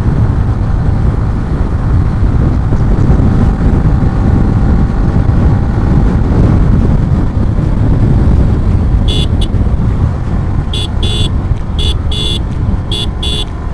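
Heavy wind buffeting on the microphone of a motorcycle at highway speed, mixed with engine and road noise. From about nine seconds in, a horn sounds in a run of short toots.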